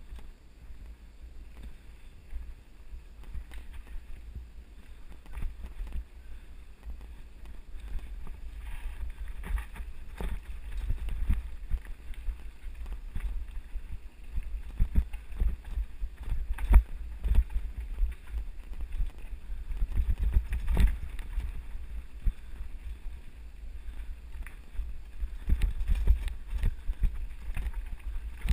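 Wind buffeting an action camera's microphone on a mountain bike descending a bumpy dirt singletrack, with frequent knocks and rattles from the bike over the bumps, which become busier after the first several seconds.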